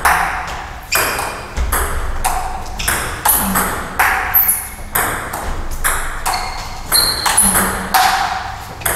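Table tennis rally with a 40+ plastic ball: sharp clicks of the ball off the bats and the table, about two a second, steady throughout.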